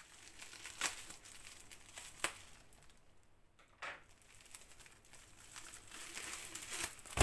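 Scissors snipping open a white padded plastic mailer, a few sharp cuts, then the mailer's plastic crinkling as it is handled and opened, louder toward the end.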